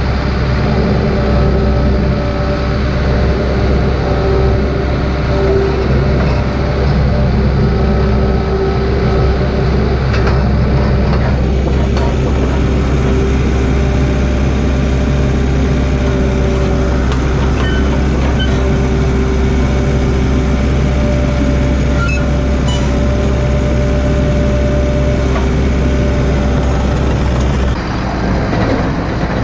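Takeuchi excavator's diesel engine running steadily, with a steady whine over the low engine hum. The low part of the sound drops off abruptly near the end.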